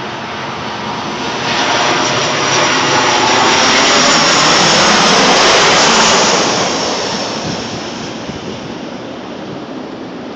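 Jet airliner flying low overhead on its landing approach: the engine roar builds, is loudest for a few seconds midway with a high whine on top, then fades as the plane passes.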